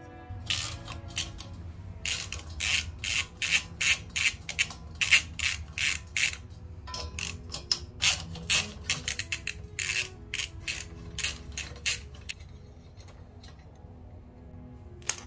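Hand ratchet clicking in quick, uneven runs of strokes as a bolt on a small mini-bike engine is turned, stopping about three quarters of the way through. Faint background music runs underneath.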